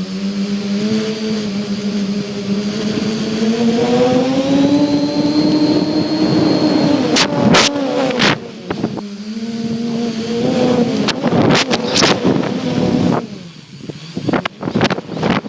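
Electric motors and propellers of an RC tricopter droning as heard from a phone strapped to its frame, the pitch climbing for a few seconds and then easing back with the throttle, over wind rush. In the second half, sharp cracks and pops cut in repeatedly and the drone dips briefly near the end.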